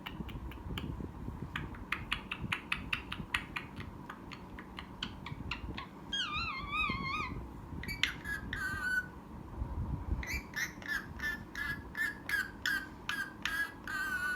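Pet parrot making a run of quick clicks, then a warbling, wavering whistle, more whistles, and a string of short chirping whistles.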